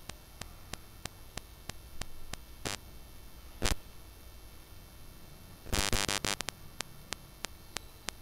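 A flat steel spatula scraping and stirring thick frying masala in a metal kadai: short scrapes near three and four seconds in and a longer scraping run about six seconds in, over a steady low hum and faint regular ticking about five times a second.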